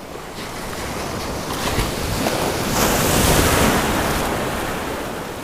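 Surf waves washing in around a wader's legs, swelling to a loud rush about three seconds in and then easing, with wind on the microphone.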